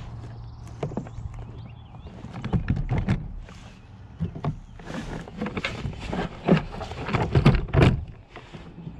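Irregular knocks and clunks of gear being handled against a plastic sit-on-top kayak's hull, coming in quick clusters and loudest near the end.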